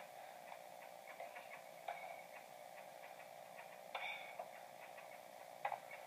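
Faint steady hiss from a baby monitor's small speaker, with a few soft clicks about two, four and five and a half seconds in.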